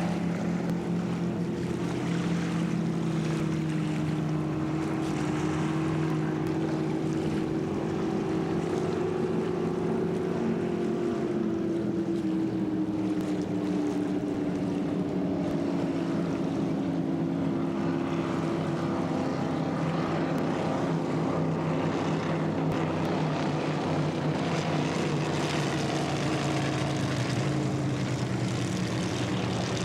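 Inboard engine of a racing boat running steadily at low speed, its pitch drifting slowly up and down without any sharp revving.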